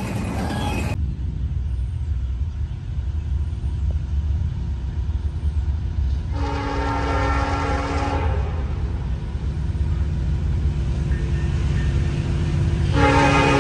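Approaching locomotive sounding its multi-note air horn for a grade crossing: one long blast about six seconds in, and a second starting near the end, over a low steady rumble.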